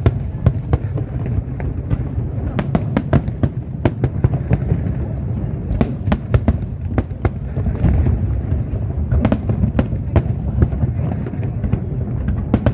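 Fireworks display: a rapid, irregular string of sharp bangs and crackles over a steady low rumble.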